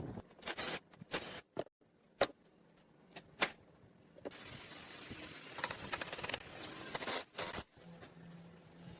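Several sharp clicks and knocks during the first half, then a steady hiss lasting about three seconds that cuts off, followed by a faint low hum.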